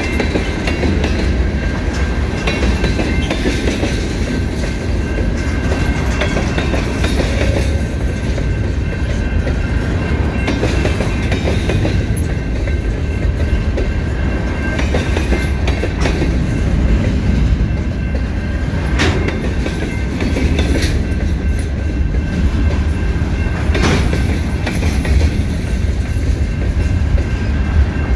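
Freight train of covered hopper cars rolling past close by: a steady loud rumble with wheel clatter over the rail joints and a few sharper clanks.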